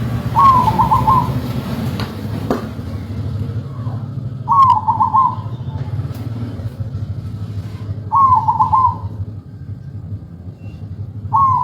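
A zebra dove (perkutut) singing its trilled cooing song: three calls about four seconds apart, each a quick run of rising and falling notes, with a fourth starting near the end. A steady low rumble runs underneath.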